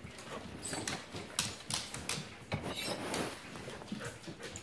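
A dog's claws clicking irregularly on a hardwood floor as it walks, mixed with light shuffling footsteps.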